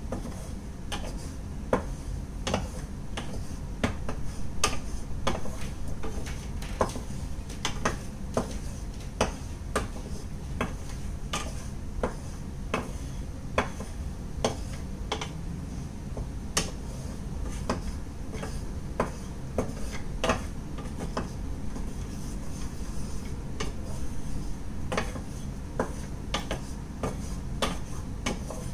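A wooden spatula knocking and scraping against a frying pan while stirring cashew nuts in ghee, with sharp, irregular clicks about once a second.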